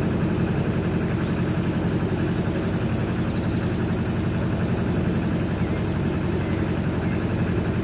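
Canal narrowboat's diesel engine running steadily with an even, regular low beat.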